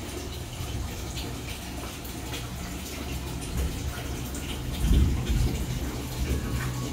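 Aquarium water bubbling from air stones and the filter, with a steady low hum and a low bump about five seconds in.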